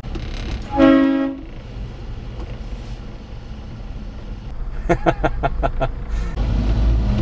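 A short two-tone vehicle horn toot about a second in, the loudest sound. Under it runs the steady low drone of a Daihatsu Hijet mini truck's 660cc three-cylinder engine and road noise, heard from inside its cab. About five seconds in comes a quick run of sharp clacks.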